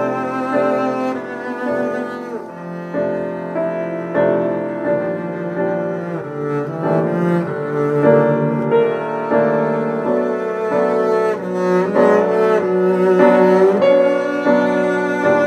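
Double bass played with the bow: a slow, continuous melody of sustained notes, with a few notes sliding up or down in pitch between them.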